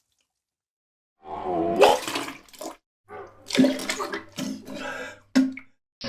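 A person vomiting: after about a second of silence, one drawn-out retch, then several short gagging heaves with liquid splashing into water.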